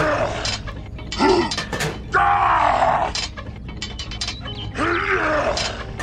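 A voice giving about four short, strained groans and grunts, each rising and falling in pitch, like someone heaving against a heavy load, with some clicking between them.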